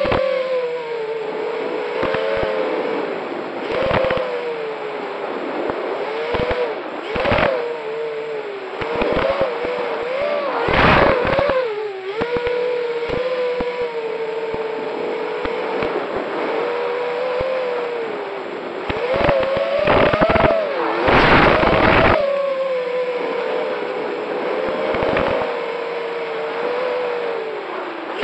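Racing quadcopter drone's motors and propellers whining, the pitch wavering up and down as the throttle changes, with several brief loud rushes of noise in between.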